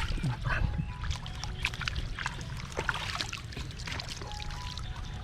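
Water splashing and trickling, with many small irregular splashes and clicks over a low steady rumble.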